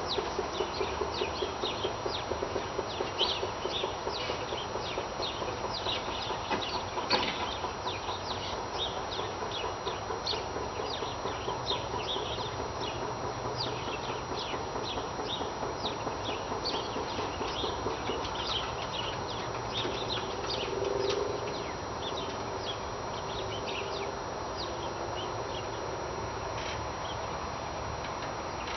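Outdoor morning ambience full of short, high bird chirps. A fast, even low pulsing runs under them for the first several seconds and then fades, and one sharp knock stands out about seven seconds in.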